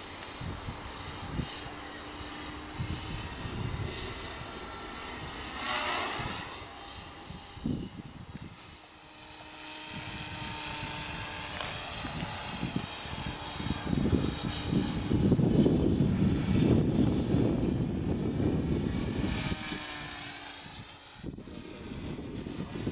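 Electric RC helicopter (eSky Belt CP with a four-blade main rotor head) flying, its rotor and brushless motor making a steady high whine. The pitch swings up and back down about six seconds in. A louder low rumble of wind on the microphone comes in for several seconds in the second half.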